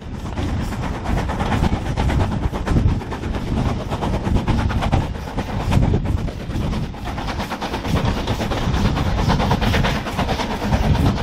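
BR Standard Class 4 steam locomotive 76084 working hard and picking up speed: rapid exhaust beats heard from the train behind it, over the rumble and clatter of the carriages on the track.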